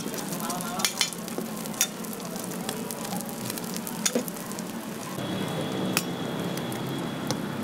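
Burger patty and egg sizzling on a flat-top griddle, a steady frying hiss, with a few sharp clicks of a metal spatula against the plate.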